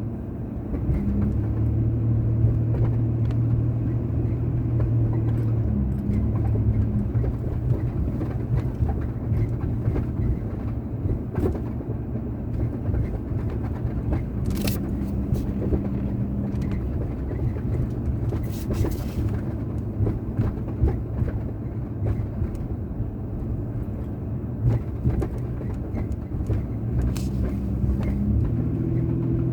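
Nissan Frontier pickup driving: a steady low road and tyre rumble with the engine's hum, which rises and falls with speed, and a few scattered light knocks.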